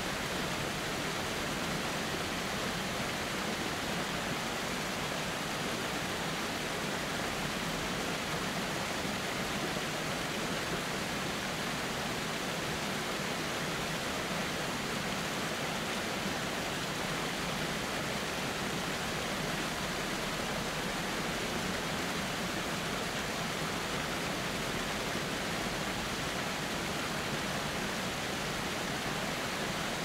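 Waterfall, water pouring over shale ledges in a steady, even rush.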